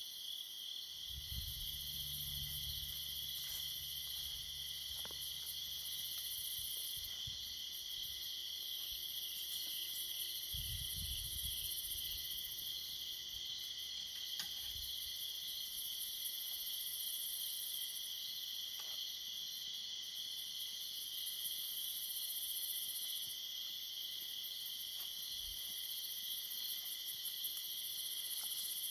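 Steady chorus of crickets and other night insects, a high shrill drone with a higher layer that swells and fades every few seconds. A low rumble comes in twice, once just after the start and again about ten seconds in.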